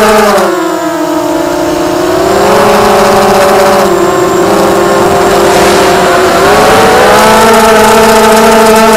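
Blackout Mini H racing quadcopter's brushless motors whining as the throttle changes: the pitch drops about half a second in, then climbs in steps around two and a half seconds and again near seven seconds.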